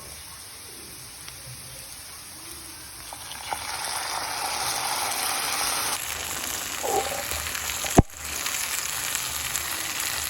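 Food frying in hot oil in a pan, the sizzle swelling about three and a half seconds in, with a single sharp knock near the end.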